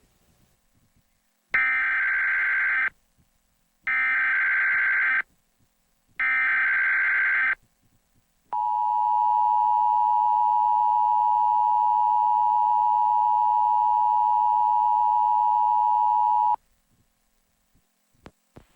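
Emergency Alert System test signal: three short bursts of digital header data, each just over a second, followed by the steady two-tone attention signal held for about eight seconds.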